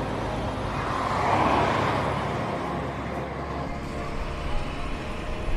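A car driving past, its tyre and road noise swelling to a peak about a second and a half in and then fading away.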